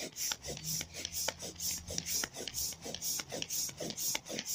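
Air pump blowing air through a hose into the valve of a vinyl inflatable ride-on, with a rhythmic rasp about three times a second over a low steady hum.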